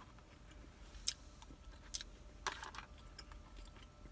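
Faint eating sounds: a few short, scattered clicks and smacks of chewing, with a slightly longer rustle about two and a half seconds in.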